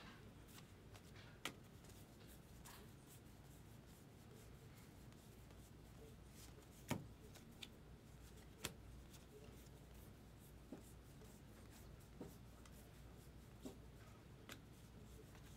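Trading cards handled and flipped through by hand: soft sliding with a small card click every second or two, over a faint steady low hum.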